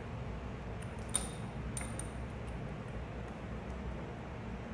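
A few faint metallic clinks as flanged hex nuts are threaded by hand onto the bolts of a plastic pump's liquid chamber, the sharpest just over a second in, over a steady low hum.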